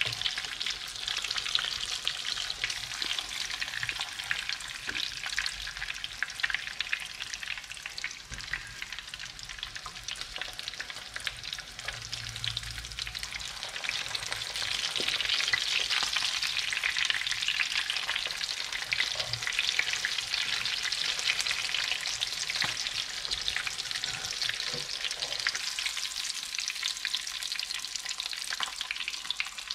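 Breaded pork chops frying in hot oil in a pan: a steady sizzle full of fine crackling, growing a little louder about halfway through.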